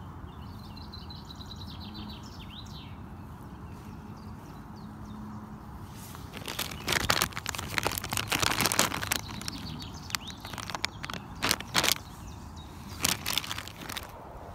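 Small birds chirping and trilling at the start, then the crackle of a plastic lure packet handled close to the microphone, in loud bursts from about six seconds in.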